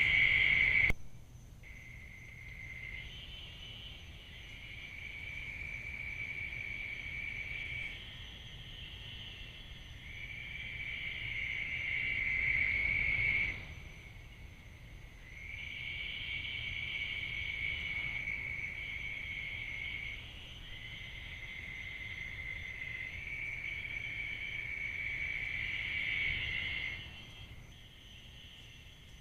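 Night insects trilling steadily in a high, continuous chorus, the level jumping up and down abruptly several times.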